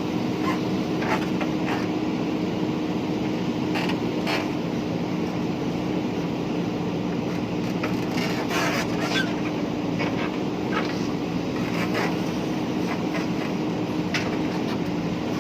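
JCB 3DX backhoe loader's diesel engine running steadily under work, with scattered sharp clanks and knocks throughout.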